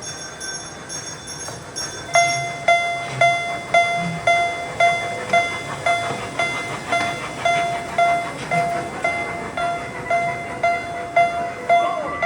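Japanese railroad crossing warning bell ringing its steady "kan-kan" alarm, about two strokes a second. It starts loud and sudden about two seconds in, after a fainter, higher-pitched ringing, with a low rumble underneath.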